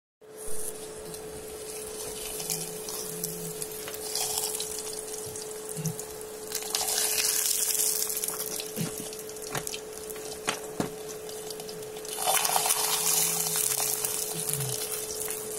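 Paratha sizzling in oil on a hot iron tawa, a steady hiss that swells louder twice. A steady hum runs underneath, with a few light clicks.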